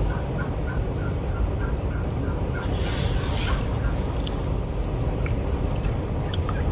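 A long, even series of turkey yelps, about four to five notes a second, stopping about four seconds in, over steady wind noise on the microphone. A brief hissing rush comes about three seconds in.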